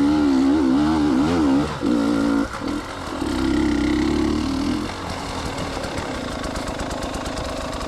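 Enduro dirt bike engine worked on and off the throttle, its pitch rising and falling, with two brief cut-outs and a steadier stretch before dropping to a quieter rough running sound about five seconds in.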